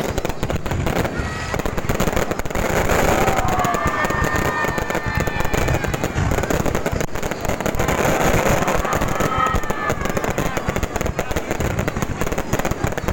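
Fireworks going off in a dense, continuous run of rapid crackles and pops.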